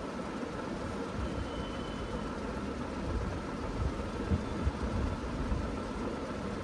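Steady mechanical hum, like a fan or air conditioner running, with a faint high tone and irregular low rumbles.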